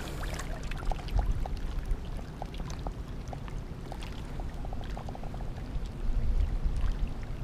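Small waves lapping and trickling among the shoreline rocks, with scattered small ticks of water, over a steady low rumble of wind on the microphone.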